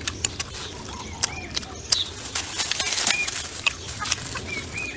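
Small birds chirping in short, arching calls, over a scatter of sharp clicks and crackles.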